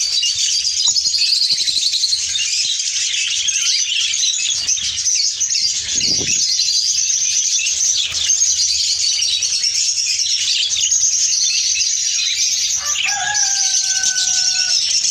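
Flock of budgerigars in an aviary chattering and chirping continuously, a dense high-pitched twittering. A soft thump comes about six seconds in, and a steady whistled note is held for about two seconds near the end.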